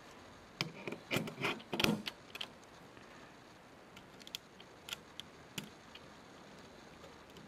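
Sangamo solar dial being fitted back onto its metal time-switch mechanism: a quick cluster of small clicks and knocks about a second in, then a few light ticks as the dial is turned anticlockwise with a small screwdriver.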